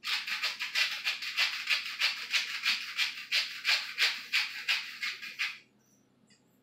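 Rapid, even scraping or rubbing strokes, about five a second, that stop short about a second before the end.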